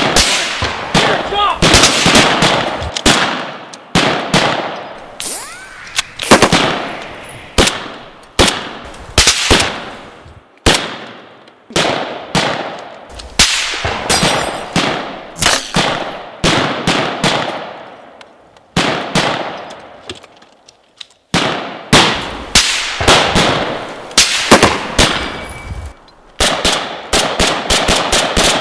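Gunfire of a firefight: rifle shots and bursts of automatic fire, each shot followed by a long echo, with a rapid burst of automatic fire near the end.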